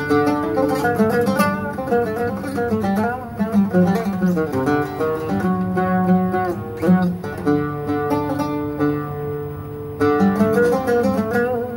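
A newly made oud played solo, its new strings not yet fully settled: a melody of plucked notes and quick runs, going softer for a couple of seconds before picking up again near the end.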